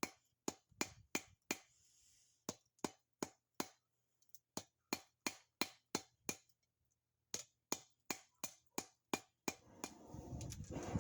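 Hand hammer striking hot steel on an anvil, sharp ringing blows in runs of four to six at about three a second, with short pauses between runs. A rough rushing noise builds up near the end.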